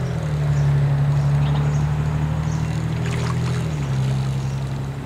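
A motor engine running with a steady low drone that swells about a second in and drops a step in pitch about four seconds in.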